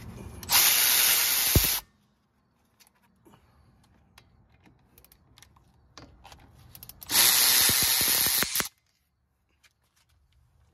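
Milwaukee cordless electric ratchet running in two bursts of about a second and a half each, roughly six seconds apart, spinning out the two 14 mm bolts of a front brake caliper.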